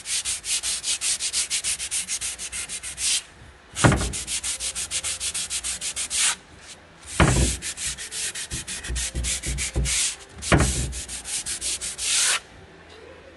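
A fine sanding pad rubbed by hand in quick, even back-and-forth strokes over paper transfers on a chalk-painted wooden cupboard, distressing them to a faded, aged look. The strokes pause a few times, each restart marked by a low bump, and stop near the end.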